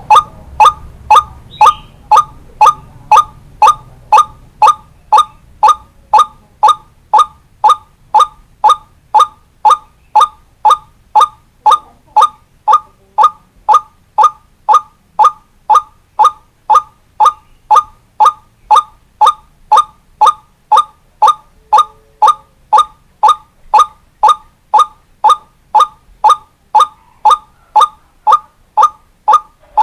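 White-breasted waterhen (ruak-ruak) call, played as a trapping lure: one short note repeated evenly about twice a second, on and on without a break.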